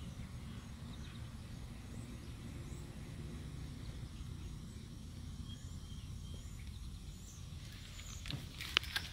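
Quiet outdoor background: a steady low rumble with faint, scattered bird chirps, and a few sharp clicks near the end.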